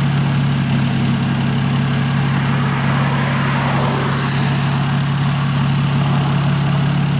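Turbocharged Toyota JZ inline-six engine idling steadily with a deep, even hum.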